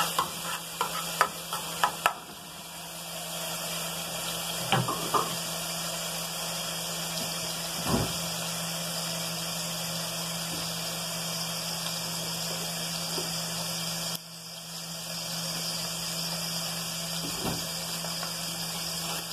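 Chopped onion and garlic sizzling steadily as they fry in a little oil in an aluminium pan. A spatula clicks against the pan during the first two seconds, and there are a few single knocks later on.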